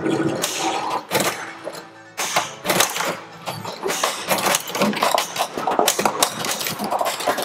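Williams White Water pinball machine in multiball: its game music plays over a rapid run of sharp clacks from the balls, flippers and solenoids, while jackpots are being scored.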